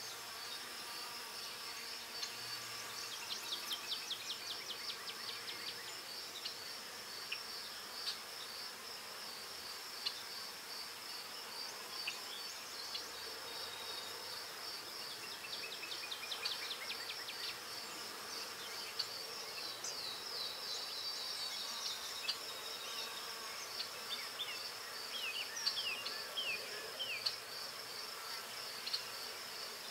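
Graphite pencil scratching on drawing paper in short clusters of strokes, over a steady, high, rapidly pulsing insect-like trill.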